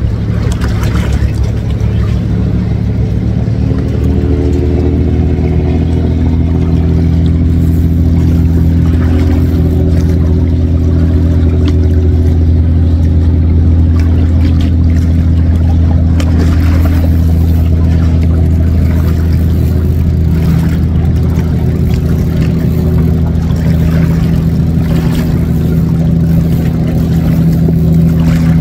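An engine running steadily, a low drone with a higher tone that comes in about four seconds in and holds.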